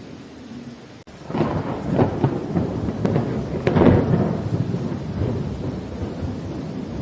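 A thunderclap over steady rain: the thunder breaks about a second in with crackling rumbles, peaks at around four seconds, then rolls off while the rain continues.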